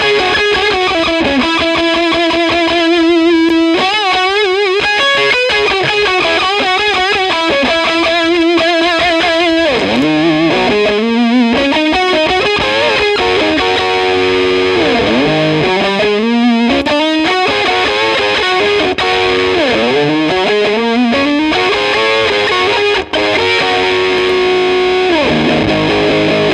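Distorted electric guitar, a Les Paul through a Tonebender MKI-style fuzz pedal into a Marshall JCM800 2x12 combo. It holds fuzzy lead notes with wide vibrato, then from about ten seconds in plays riffs with notes sliding down and back up. The fuzz is switched between two MKI clones as it plays.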